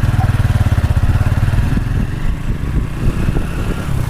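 TVS Stryker 125 cc single-cylinder motorcycle engine running with a rapid, even beat as the bike is ridden at low speed in the lower gears.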